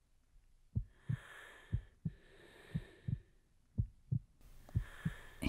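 Heartbeat: five double lub-dub thumps, about one a second, over a soft hiss that swells and fades twice.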